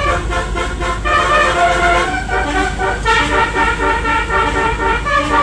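Multi-tone 'telolet' horn on an odong-odong sounding a tune of stepped notes, one after another, over a low steady rumble.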